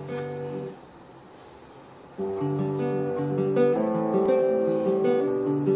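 Acoustic guitar: a chord rings and stops under a second in, then after a short pause the guitar starts playing continuously about two seconds in, strummed chords with picked notes.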